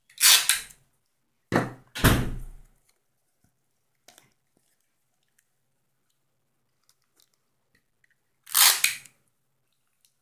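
A homemade paper-tube and tape toy shotgun being handled and turned over close by: four short rustling scrapes, three in the first three seconds and one near the end.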